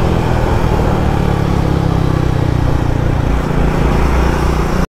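Triumph Speed 400's single-cylinder engine running steadily as the motorcycle cruises along a highway. The sound cuts off suddenly near the end.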